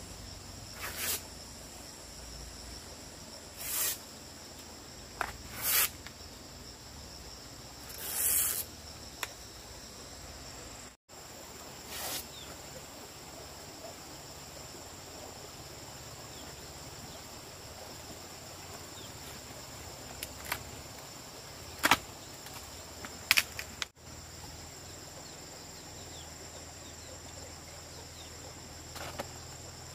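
Steady high drone of insects, with a scatter of brief louder noises, the sharpest about two-thirds of the way through.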